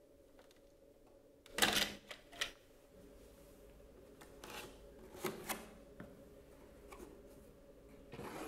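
Hard plastic clicks and a clatter as the red release catch is pressed and the clear bin comes off the main body of a Dyson V7 cordless vacuum, loudest about one and a half seconds in. Softer cardboard rustles and taps follow as a box is opened, over a faint steady hum.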